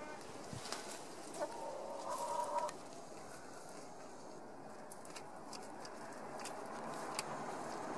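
Domestic hens clucking, with one drawn-out call about a second and a half in, over scattered light taps and a steady background hiss.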